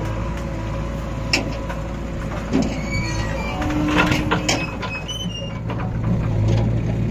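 Diesel engines of a JCB 3DX backhoe loader and a John Deere 5050E tractor running steadily, with sharp knocks and clatter from the backhoe arm and bucket. The knocks are thickest about four seconds in, as the bucket swings over and dumps soil into the tractor's trolley.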